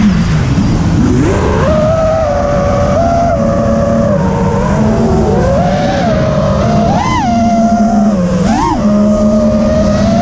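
Brushless motors and props of a 6S FPV freestyle quadcopter (Amax 2308 1800 KV motors, Gemfan 51466 props) whining in flight, the pitch rising and falling with the throttle, with two quick throttle punches about two-thirds of the way through. Wind rushes over the onboard camera's microphone.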